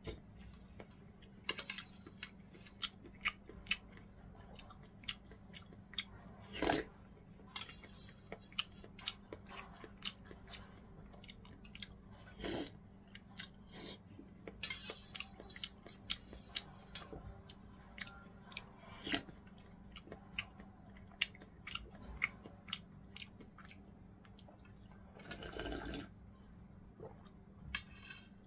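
Close-up eating sounds: gimbap being chewed, with irregular wet mouth clicks and smacks and a few longer bursts, over a faint steady hum.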